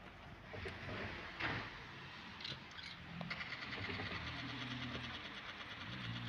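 A faint, steady mechanical hum, like a running engine, with a fast, even rattle joining about three seconds in.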